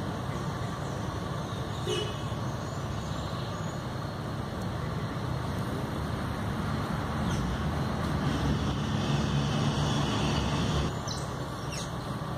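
Steady low rumble of distant road traffic, swelling for a few seconds past the middle, with a few faint short high sounds over it.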